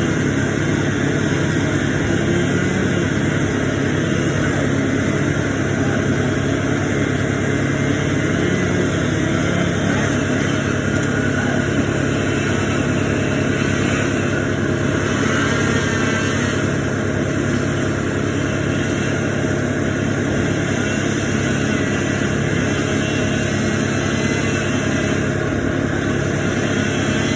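A large engine running steadily at constant speed, with a deep even drone and no revving.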